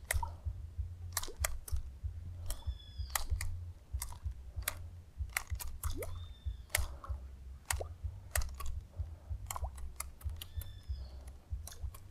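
Sharp, irregular clicks, two to three a second, from the rod and baitcasting reel as a walk-the-dog surface lure is twitched and reeled back across the water.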